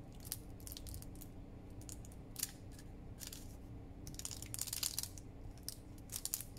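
Parchment baking cup crinkling and crackling in irregular bursts as a plastic bottle is rolled and pressed over the folded paper, over a low steady hum.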